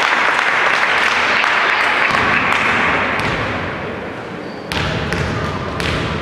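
Crowd noise in a sports hall, loud at first and slowly fading. Near the end, a basketball is bounced on the court a few times before a free throw.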